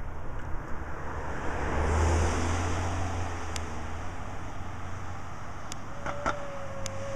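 Road traffic: a car passing on the street, its noise swelling about two seconds in and slowly fading, with some wind on the microphone. A few sharp clicks are heard, and a steady held tone begins about six seconds in.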